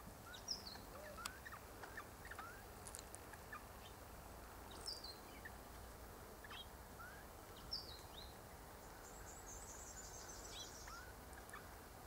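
Faint, scattered bird calls: short chirps and brief sliding whistles at several pitches, with a rapid high trill about nine seconds in.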